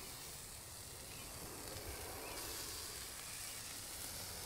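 Bife de chorizo steaks sizzling steadily on a hot flat-top griddle.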